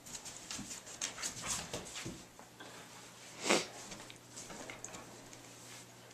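Tibetan Mastiff puppies tussling over a rope toy in a game of tug-of-war: scuffling and small dog noises, with one short, louder burst a little past halfway.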